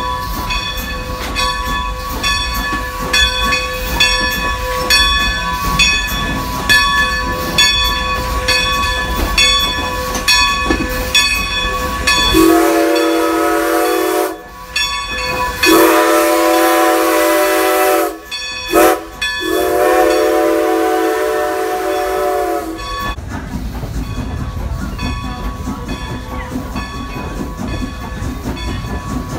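Strasburg Rail Road No. 90, a 1924 Baldwin 2-10-0 steam locomotive, working with a steady rhythmic beat of a little under two strokes a second. About halfway through it sounds its steam whistle in two long blasts, a short one and a long one, the grade-crossing signal. After that the beat carries on more faintly.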